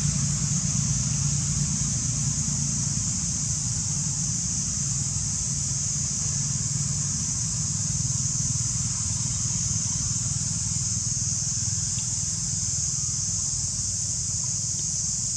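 A steady low mechanical hum, like an engine running, under a constant high-pitched hiss, with no separate events standing out.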